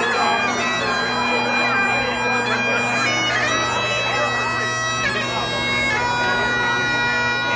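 Several Great Highland bagpipes playing a tune together over their steady, unbroken drones.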